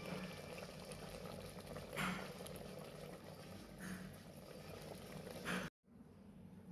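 Food cooking in a pot, a steady sizzling and bubbling with a few louder swells. It cuts off abruptly near the end and resumes more quietly.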